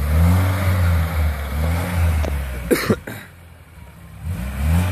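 Lada Niva's four-cylinder engine revving in three swells as the SUV moves over wet grass, easing off between them. Two short sharp sounds come close together a little past halfway.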